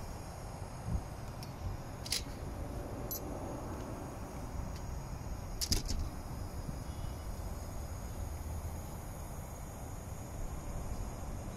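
Low steady rumble of a distant jet airliner, with a few short sharp clicks about two and six seconds in.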